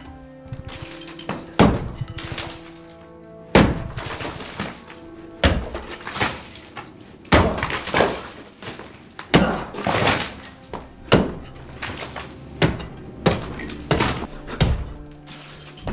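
Heavy blows breaking up an old floor, about a dozen at one to two second intervals, each followed by rubble clattering down, over background music.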